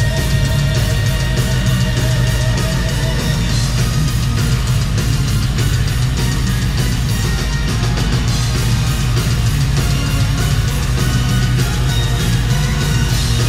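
Symphonic metal band playing live at full volume: distorted electric guitar, heavy bass and a drum kit hit in a steady, driving beat, as heard from the crowd.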